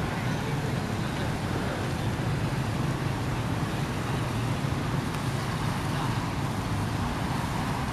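Steady low rumble of outdoor background noise, unchanging throughout, with no distinct animal calls or impacts standing out.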